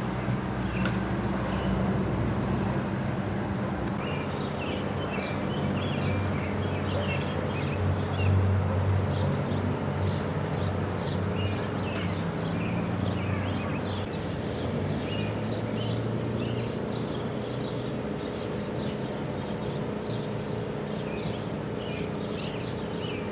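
Birds chirping and singing all around, the chirps thickening a few seconds in, over a steady low motor hum.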